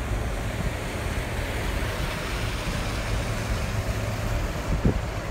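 Steady low rumble of a car driving, with engine and tyre noise heard from inside the cabin, and a couple of short low thumps near the end.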